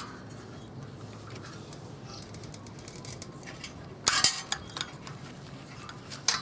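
Small metallic clicks and clinks of a 10 mm wrench working the nut on a bicycle's rear brake as it is loosened, with a louder cluster of clicks about four seconds in and another near the end.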